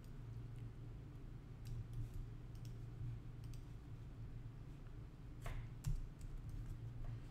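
Faint, scattered clicks of a computer mouse and keyboard, one a little louder about five and a half seconds in, over a steady low hum.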